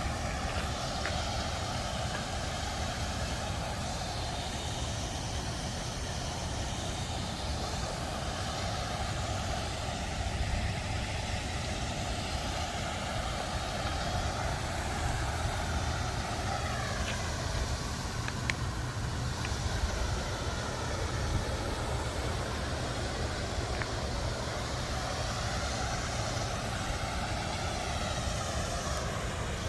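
Steady rushing of a garden waterfall with a deep rumble underneath; faint pitch slides come through about halfway through and again near the end.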